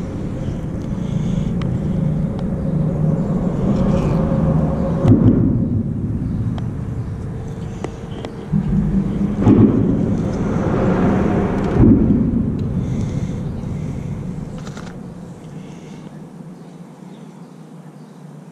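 Road traffic crossing the bridge overhead: a rumble that swells and fades as vehicles pass, with a few sharp thumps, dying away near the end.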